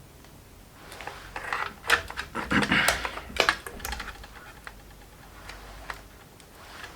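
A flurry of small clicks, taps and rustles, densest between about one and four seconds in, with a few single clicks after: multimeter probes and meter being handled and tapped against a laptop circuit board.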